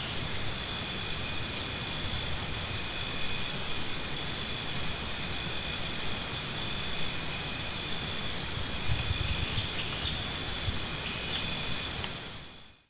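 Insects chirring: several steady high-pitched tones with no break. From about five to eight seconds in, a louder pulsing trill of about four pulses a second comes in on top, and everything fades out at the very end.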